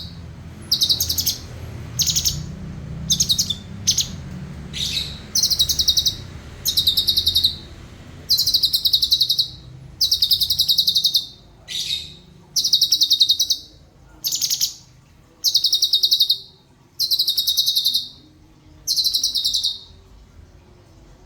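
Cucak cungkok songbird singing a run of fast, tightly packed trilled phrases, high-pitched and repeated about once a second. This is the rapid 'roll' song used as a tutor recording for other songbirds.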